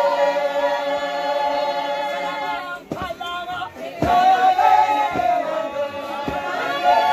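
A congregation singing a hymn together without instruments, in long held notes. The singing breaks off briefly about three seconds in, then resumes over a thump about once a second.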